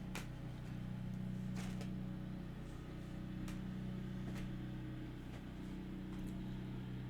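Steady low electrical hum, with a few short faint clicks scattered through it.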